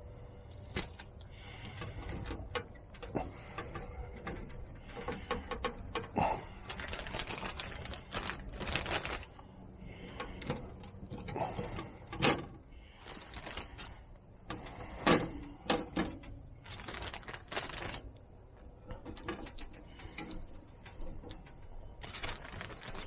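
A plastic Ziploc freezer bag crinkling and rustling in irregular bursts while pieces of smoked salmon are lifted off a wire smoker grate and dropped in, with light clicks and rattles from the grate.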